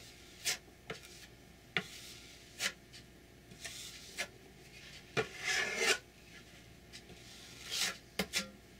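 Wide steel filling knife scraping drywall filler across a pine board in a string of short strokes, with one longer scrape about five seconds in.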